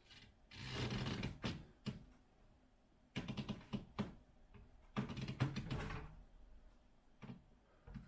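Doorframe pull-up bar creaking and knocking against the frame under a man's shifting weight during linked typewriter pull-ups. It comes in three bursts about a second long, full of sharp clicks, with a few single clicks between them.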